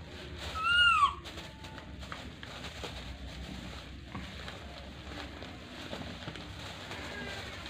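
Plastic bags crinkling and rustling as a baby monkey rummages through them. About a second in there is one loud, short call that rises and falls in pitch.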